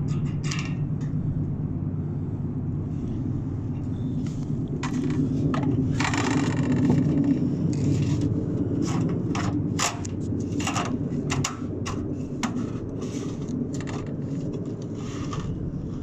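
Sheet-metal gable trim scraping and clicking against a standing seam roof panel as it is worked and hooked into place, with a longer scrape about six seconds in. A steady low rumble runs underneath.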